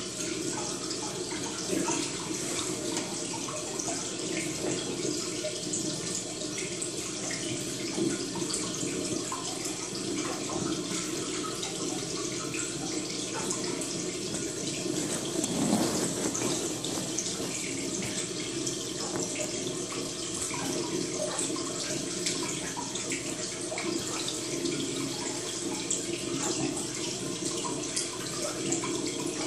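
Steady running, trickling water with many small crackles and clicks, swelling briefly louder about sixteen seconds in.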